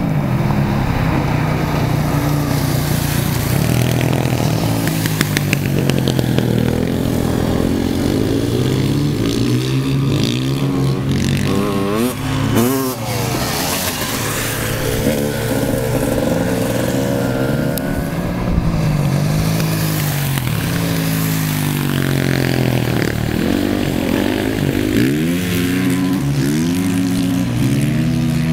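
Motorcycle engines riding on ice. The engine note rises and falls again and again as the riders open up and back off, with quick up-and-down sweeps about twelve seconds in and again around twenty-three seconds.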